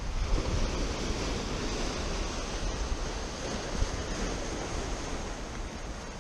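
Ocean waves breaking and washing over a rock wall of boulders, a continuous rushing surf.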